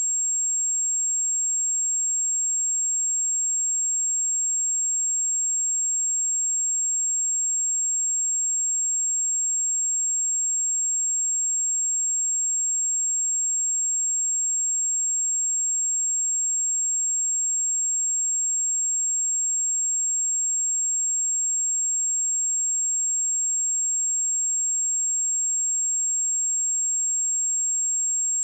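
A continuous 7536 Hz sine-wave test tone: one steady, very high-pitched pure tone that holds at a constant level.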